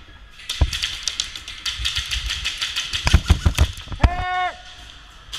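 Rapid airsoft gunfire, a fast run of sharp clicks about ten a second, with a few heavier thumps partway through. About four seconds in there is a brief held, high-pitched note.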